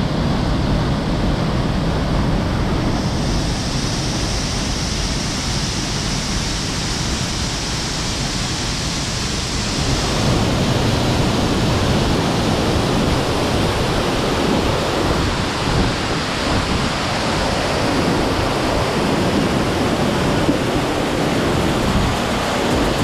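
Waterfall and its rocky stream rushing: a loud, steady noise of falling and tumbling water, a little fuller and lower from about ten seconds in.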